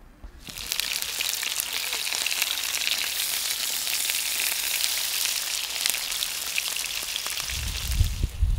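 Meat-wrapped tofu rolls sizzling and crackling in hot oil in a nonstick frying pan, starting suddenly about half a second in. A low rumble joins near the end.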